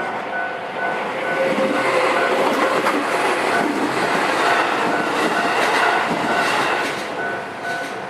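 A train passes over a railway level crossing, loudest in the middle, its wheels clacking over the rail joints. Through it all the crossing's warning bell rings in an even repeating rhythm.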